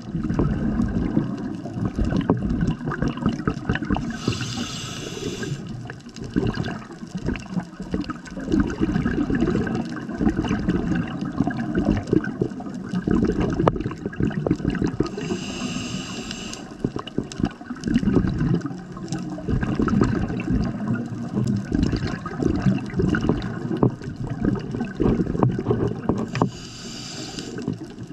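Scuba diver breathing through a regulator underwater. Three short hissing inhales come about eleven seconds apart, and between them run long, low, gurgling streams of exhaled bubbles.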